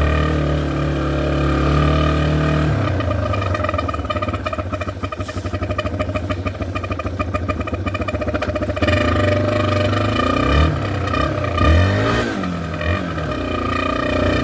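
Yamaha TT-R230 dirt bike's single-cylinder four-stroke engine running with an air horn taped into its exhaust, the exhaust blowing through the horn so that a steady honking, clown-car-like tone sits over the engine note. The engine putters evenly at low revs from about three seconds in, then revs up and down several times near the end.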